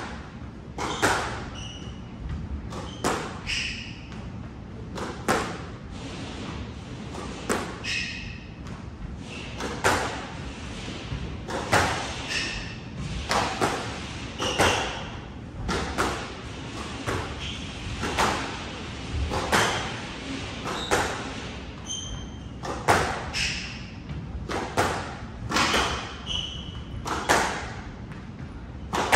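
Squash rally: the ball is struck by racket strings and smacks off the walls in quick succession, each hit ringing with the court's echo. Short high chirps between the hits are sports shoes squeaking on the hardwood floor.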